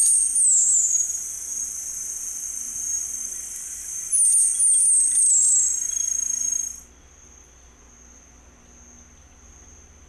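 Band-tailed barbthroat singing: a short series of very high, quickly falling notes, given twice, at the start and again about four seconds in, over a steady high thin whine. The recording turns much quieter about seven seconds in, leaving only the faint whine.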